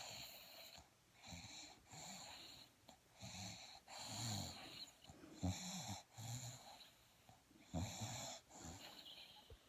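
Snoring in sleep: a slow, regular rhythm of breaths, each a low snore with a higher hiss over it, about one breath every two seconds.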